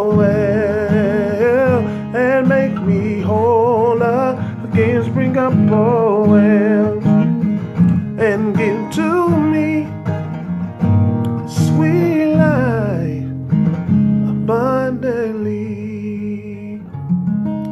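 A man singing with a wavering vibrato over a strummed acoustic guitar; near the end the voice drops away and the guitar carries on alone.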